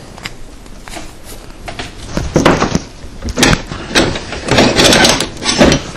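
Hand tools and metal parts being handled and rummaged through on a workbench: a run of clattering, scraping bursts beginning about two seconds in.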